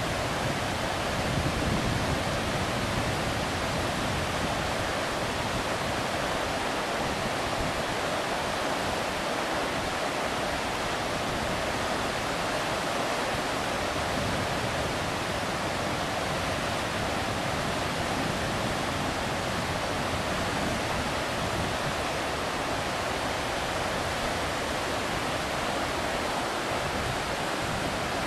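River Tay rushing over rocky whitewater rapids: a steady, even rush of water.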